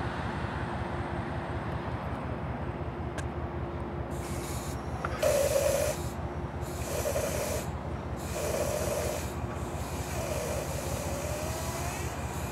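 Metro-North diesel push-pull train standing after arrival: a steady low throbbing idle throughout, and from about four seconds in a run of five short air hisses, the loudest about five seconds in, the last rising in pitch as it fades.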